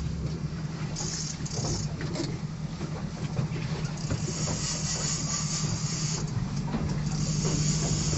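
A steady low motor hum, with spells of high hissing about a second in, in the middle, and again near the end.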